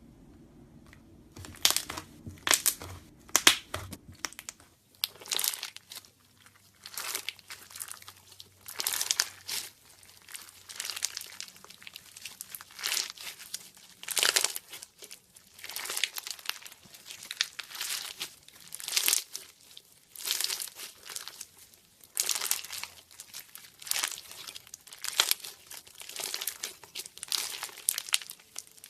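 Slime being squeezed and stretched by hand, crackling and crinkling in short bursts about once a second.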